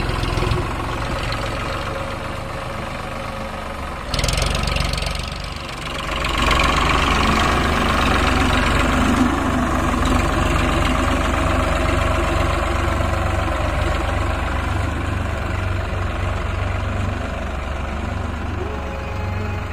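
Tractor diesel engine running with a steady low throb, which turns louder and harder from about six seconds in, as if taking up load. A short burst of hiss comes about four seconds in.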